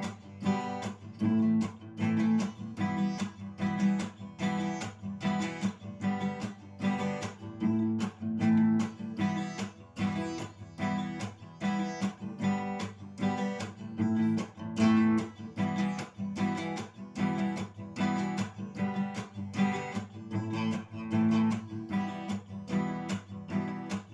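Acoustic guitar strummed in a steady, even rhythm with no singing, playing the instrumental break between the song's chorus and the next verse.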